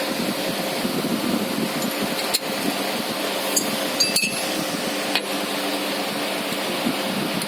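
A few light metallic clinks and clicks, spread over the middle seconds, as small metal parts are handled during reassembly, over a steady mechanical hum like a fan.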